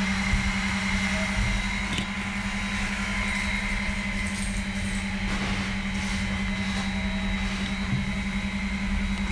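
Robo R2 3D printer's cooling fans running with a steady hum as the extruder and print bed are cooled down to a safe temperature. A couple of faint clicks come about two seconds in and again near the end.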